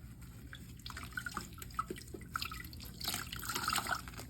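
Water sloshing and dripping in the tub of a small portable washing machine as a soaked mop head is handled in the rinse water, loudest about three seconds in.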